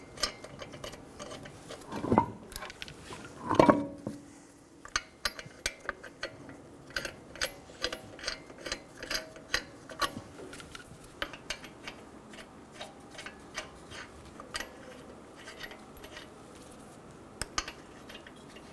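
Lug nuts being threaded by hand onto a car wheel's studs: light, irregular metal clicks and clinks, about one or two a second. Two louder knocks come in the first four seconds.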